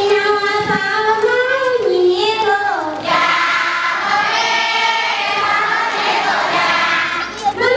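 Dong duoye circle-dance song sung by a group of adults and children: a leading voice holds a wavering sung line, then about three seconds in many voices join in a fuller sustained chorus, which gives way to a single voice again near the end.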